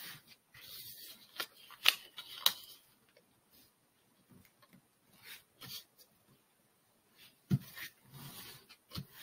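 Square of origami paper being pleat-folded and creased by hand: rustling and sharp crackles of the paper as creases are pressed down, in a few short spells with quiet between.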